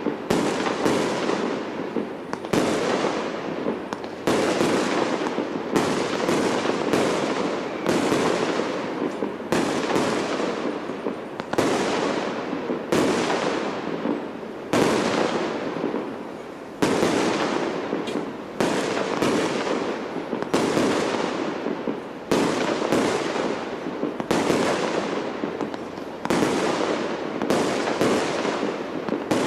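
Aerial firework shells bursting in quick succession, about one bang a second, each fading away before the next.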